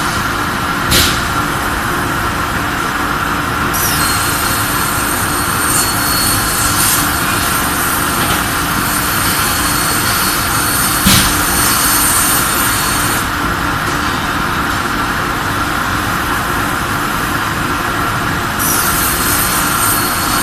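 CNC plasma cutting machine at work: a loud, steady machine-and-air noise, with a high hiss and thin whine that switch on about four seconds in, stop about thirteen seconds in, and start again near the end. Two sharp clicks are heard, one early and one about eleven seconds in.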